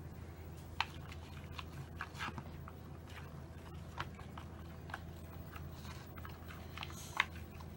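A child's hand squishing and stirring a wet guar gum slime mixture in a bowl: scattered faint wet clicks and squelches, a few sharper ones, over a low steady hum.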